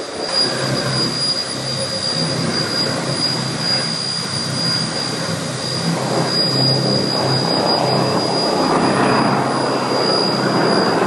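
Janser BS 580 floor grinder with counter-rotating heads grinding a concrete screed floor: a loud, steady motor and grinding noise with a constant high whine, and its attached dust extractor running with it.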